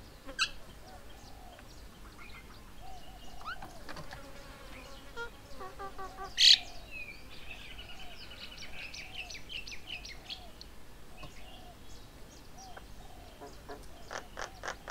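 Several birds calling and chirping. One loud, sharp call comes about six and a half seconds in, followed by a rapid chattering run of notes, with more short calls throughout.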